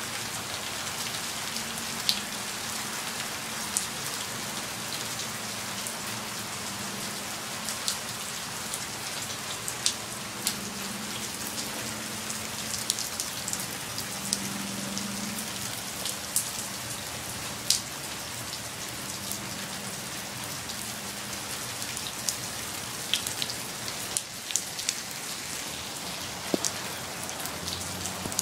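Steady light-to-medium rain falling, with scattered sharp taps of individual drops striking close by.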